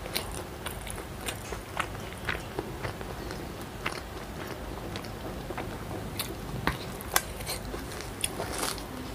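Close-miked chewing and mouth sounds: irregular wet clicks and smacks, several a second, picked up by a clip-on microphone at the collar.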